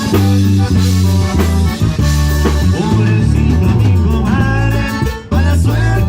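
Live band playing an instrumental passage, with a strong bass line under higher pitched instrument melody lines; the music drops briefly about five seconds in before coming back in full.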